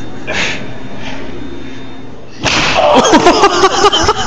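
A man falling off a balance ball onto a rubber gym floor: a sudden loud crash about two and a half seconds in, followed at once by loud excited shouting.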